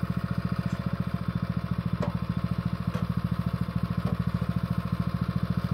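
Small engine of a tracked motor wheelbarrow idling with a steady, rapid, even putter, with a couple of faint knocks from manure being shovelled into the bin.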